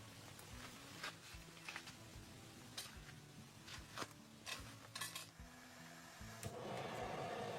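Light, irregular clinks and taps of camp cookware and utensils. About six and a half seconds in, a steady hiss sets in.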